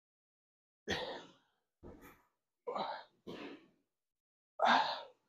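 A man's forceful exhales while lifting dumbbells, five short breaths about a second apart, the last the loudest.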